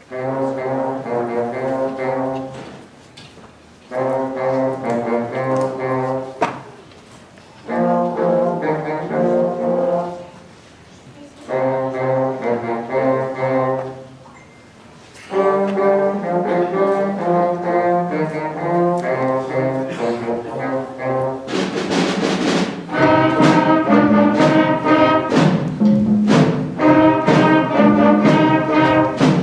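A student instrumental ensemble playing a blues-style piece: four short phrases with brief pauses between them, then continuous playing that turns louder and fuller about two-thirds of the way through, with sharp percussive hits.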